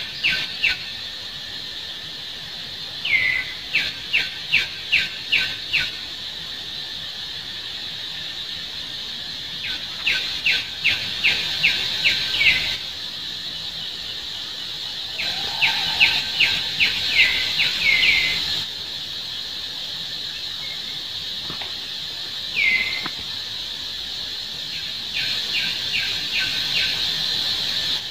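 Runs of short, high chirping calls, six to eight notes at a time and about three a second, come back every few seconds over a steady high insect drone.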